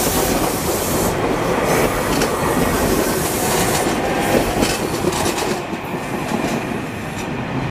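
SEPTA electric commuter train passing, its wheels rumbling and clicking over the rail joints, easing off a little near the end as the last car goes by.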